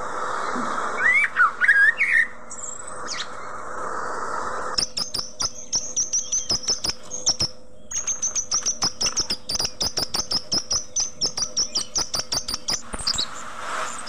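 Caged budgerigars chirping: a few loud gliding chirps about a second in, then from about five seconds in a fast, even run of sharp chirps, some five a second, that stops near the end.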